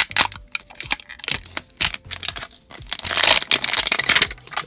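Thin printed plastic wrapper crackling and tearing as it is peeled off a small plastic toy cauldron, with a dense stretch of crinkling about three seconds in.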